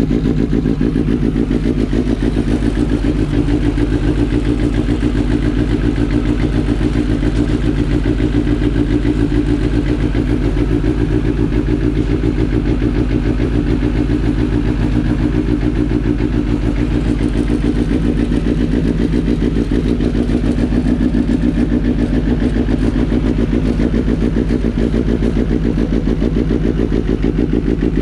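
2021 Kawasaki ZX-10RR's inline-four engine idling steadily through an Arrow full titanium race exhaust, just after its first start on a newly installed MoTeC M1 ECU.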